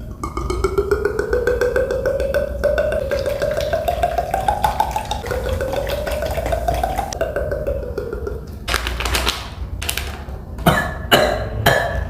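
A beatboxer's mouth-made sound effect: a buzzing, rasping tone that rises slowly in pitch for about five seconds, drops, climbs again and dies away, followed by a few short sharp hits near the end.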